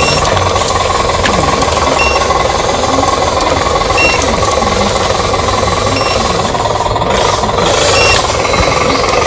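RC model truck running, a steady rattling engine-like drone with no let-up. Short faint high beeps come about every two seconds.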